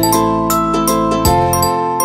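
Background music: light instrumental with struck, ringing bell-like notes.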